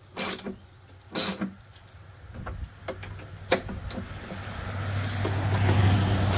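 A ratchet wrench clicking in two short bursts as the bracket bolts are tightened, then a few single clicks. From about halfway through, a motor vehicle grows steadily louder as it approaches and becomes the loudest sound.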